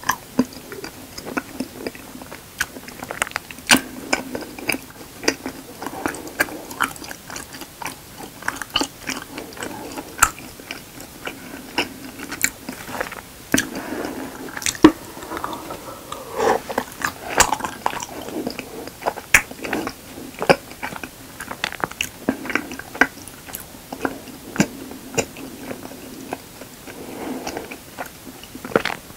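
Close-miked mouth sounds of a person chewing raw honeycomb: many irregular wet, sticky smacks and clicks as the wax comb and honey are worked in the mouth.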